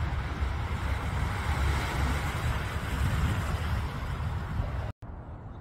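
Wind buffeting the microphone over waves washing on a beach, a steady rushing noise with a rumbling low end. Near the end it cuts out abruptly and a quieter steady background follows.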